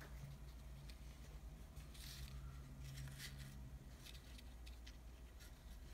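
Faint rustling of stiff folded paper and light ticks as two small origami peacocks, folded from paper-bag paper, are handled and set down on a wooden table, a few short soft scuffs over a low steady hum.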